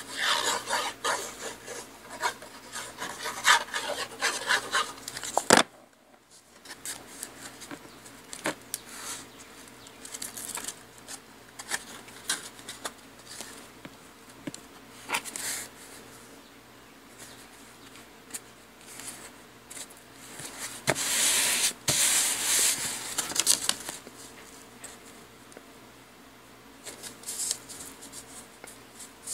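Hands rubbing and pressing cardstock against a cutting mat, smoothing a glued panel down onto a card: scratchy paper-on-paper rubbing in stretches, with a short break about six seconds in and light paper ticks and taps between the stretches.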